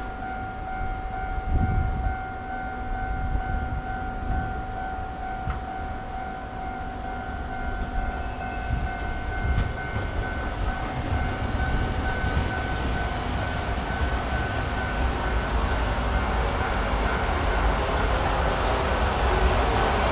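JR Hokkaido 731/733 series electric local train at a station: a steady high whine over a low rumble. The whine fades out about two-thirds of the way through, while the rumble grows louder toward the end.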